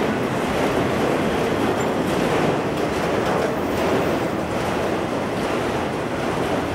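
Freight train of autorack cars rolling past close by: a steady rumble and rattle of steel wheels on the rails and the cars' bodies.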